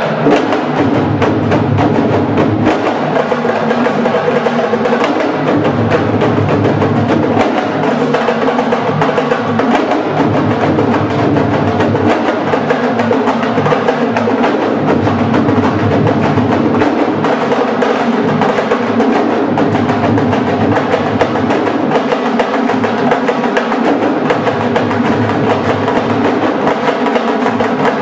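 Large ensemble of Senegalese sabar drums playing together: a dense, steady rhythm of many sharp drum strokes with no break.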